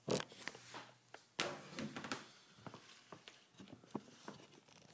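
Handling noise as a camera is moved and set in place close over a sheet of aluminum. There is a sharp knock at the start and another about a second and a half in, then scattered lighter clicks and rubs.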